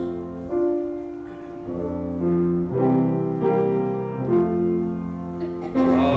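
Piano playing a hymn in slow, sustained chords, growing fuller and louder near the end.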